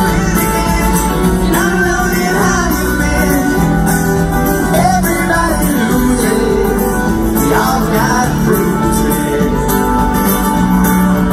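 Live band performance of a pop-country song: a man and a woman singing over acoustic and electric guitars and drums.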